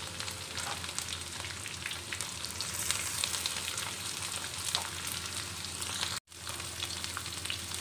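Shiitake mushrooms, garlic and dried shrimp sizzling in hot oil in a steel wok, a steady sizzle with scattered small pops. The sound cuts out for an instant a little after six seconds.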